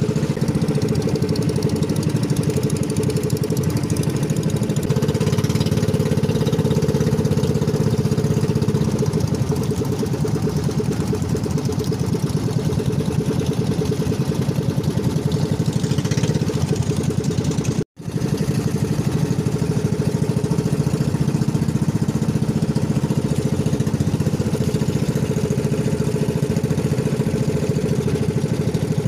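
Engine of a motorized outrigger boat running steadily under way, with wind and water noise over it; the sound cuts out for an instant about two-thirds of the way through.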